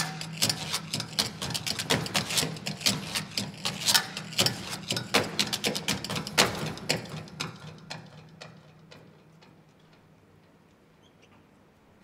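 Tap dancing: a dancer's shoes strike the stage floor in rapid, irregular taps that die away about eight seconds in.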